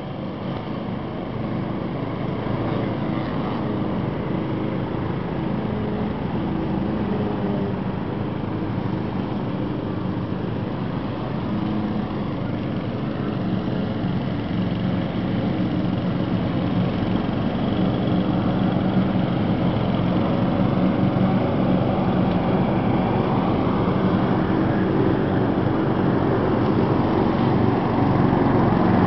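Several walk-behind lawn mowers running together at a steady speed as they cut grass, their engine tones overlapping; the sound grows gradually louder toward the end.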